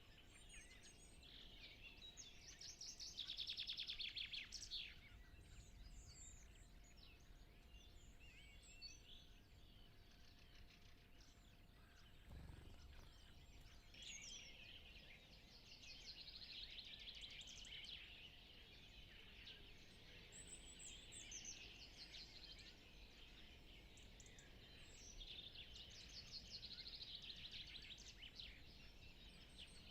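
Faint dawn chorus: several songbirds sing overlapping trills and warbling phrases, with a quieter bird now and then. A faint steady hum runs underneath, and there is a brief low rumble about twelve seconds in.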